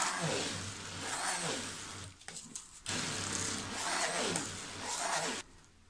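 Immersion (stick) blender grinding biscuit crumbs and butter together in a tall beaker, run in two bursts with a short pause about two seconds in. Its pitch falls again and again under the thick load, and it cuts off shortly before the end.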